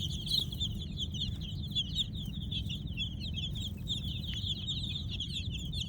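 A crowd of baby chicks peeping continuously: many short, high chirps overlapping without a break, over a steady low hum.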